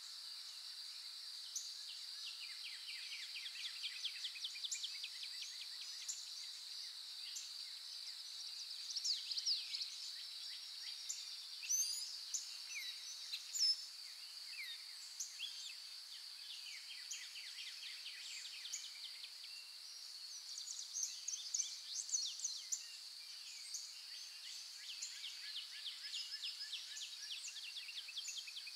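Outdoor nature ambience: a steady high insect drone with small birds chirping and twittering over it, in brief flurries.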